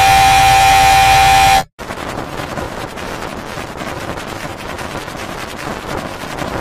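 Heavily distorted, effects-processed audio. A loud buzzing tone holds one steady pitch and cuts off abruptly under two seconds in. After a split second of silence comes a harsh crackling noise with rapid clicks.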